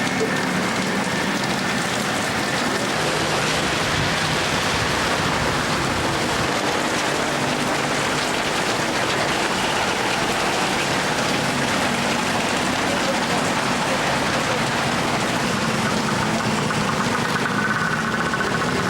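Steady, loud typhoon rain: an even hiss with no breaks.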